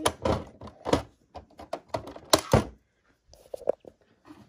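Hard plastic clicks and knocks of a Playmobil toy van being handled and its opening parts worked, in an irregular string. The loudest knocks come about a second in and twice around two and a half seconds in.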